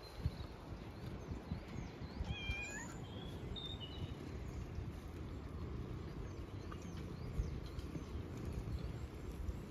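Domestic cat purring close to the microphone as it is stroked, a steady low rumble, with a few short high chirping calls about two to four seconds in.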